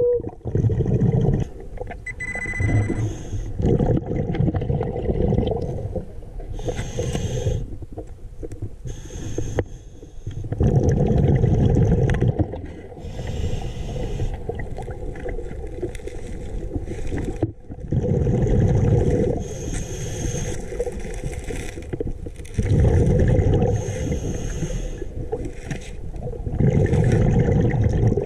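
Scuba diver breathing through a regulator, heard underwater: a rumbling surge of exhaled bubbles every few seconds, with fainter hissing inhalations between.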